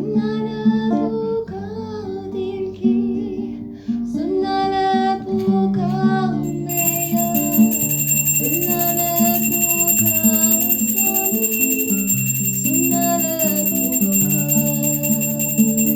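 Music with guitar and sung melody, played as an intro; about seven seconds in, the sound thickens with added high steady tones.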